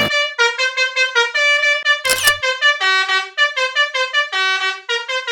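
Multi-tone telolet bus horn playing a quick melody of short, bright notes that change pitch several times a second. A short burst of noise cuts in about two seconds in.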